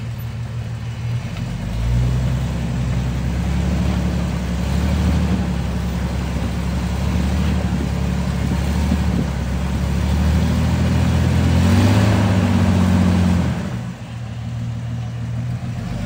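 Jeep's engine working under load as it crawls over a rock ledge. The revs rise about two seconds in and swell to their loudest about three quarters of the way through, then drop back sharply.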